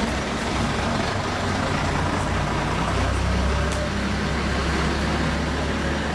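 Diesel engine of a London Transport RT-type AEC Regent III double-decker bus running as the bus draws nearer. Its low drone grows stronger about halfway through.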